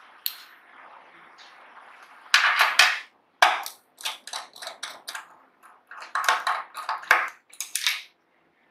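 Small metal parts of an opened laptop hard drive clicking and clinking as they are handled and pried loose around the head actuator arm and its magnet. The light metallic taps come in quick runs, starting about two seconds in and again around six seconds in.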